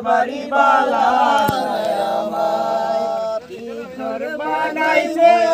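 A man singing unaccompanied in long held notes, with a brief pause about three and a half seconds in.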